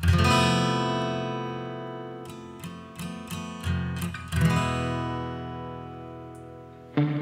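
Background music on acoustic guitar: a strummed chord rings out and fades, a few picked notes follow, then another strummed chord about four seconds in.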